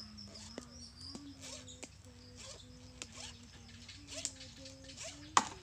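Light clicks and taps of metal being handled as a chainsaw guide bar is cleaned by hand, with a sharper click near the end.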